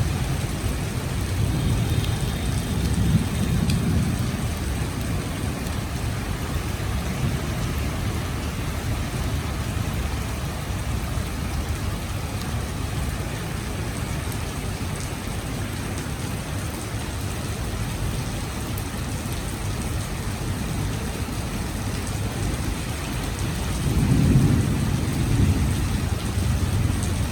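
Heavy rain falling steadily, a dense even hiss. A low rumble swells twice, a few seconds in and again near the end.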